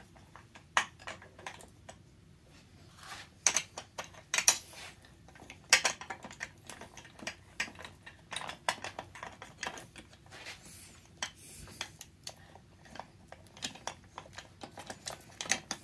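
Irregular light metal clicks and clinks as a chainsaw's bar and chain are fitted by hand, with chain links and bar nuts tapping against the bar and the bench.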